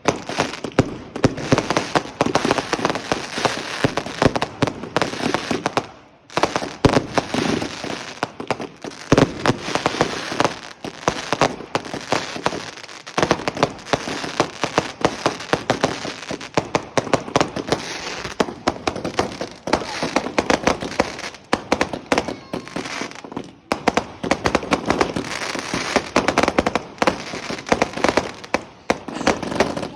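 Fireworks going off in rapid, dense volleys of crackling bangs, with a few brief lulls.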